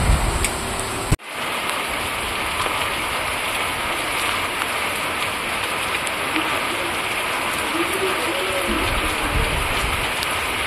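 Heavy rain falling on a flooded paved street, a steady hiss of drops striking standing water and paving tiles. About a second in, a low rumble cuts off with a sharp click and only the even rain noise remains.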